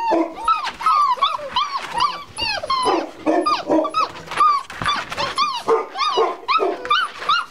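Seven-week-old English mastiff puppies whining and yelping, several at once, in many short cries that rise and fall in pitch. They are puppies wanting to be let out of a small box.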